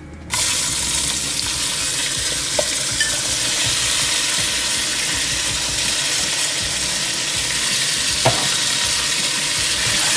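Cubed potatoes dropped into hot mustard oil, sizzling loudly from the moment they hit, about a third of a second in, and then frying steadily, with a couple of light knocks.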